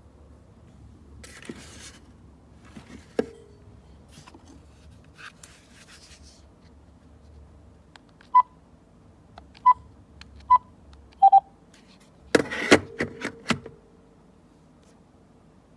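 VTech DECT 6.0 cordless phone handset beeping as its keys are pressed: three short beeps about a second apart, then two quick lower beeps. The handset is then handled with a clatter of knocks. The handset will not register with its base and shows out of range, no power at the base.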